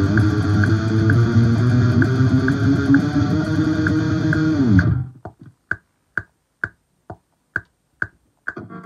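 Electric guitar playing along with a backing track, with a steady click about twice a second. About five seconds in, the music stops on a note sliding down in pitch. Only the clicks go on through the break, and the music comes back in at the very end.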